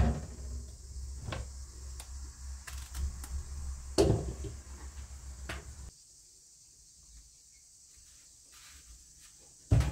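Scattered soft knocks and clicks of eggplants being trimmed with a small knife and handled over a stainless-steel sink, over a low steady hum. About six seconds in the hum and knocks drop away to near silence, with only faint handling sounds.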